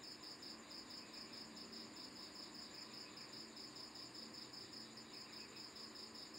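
Faint, steady high-pitched chirping of insects, pulsing evenly several times a second.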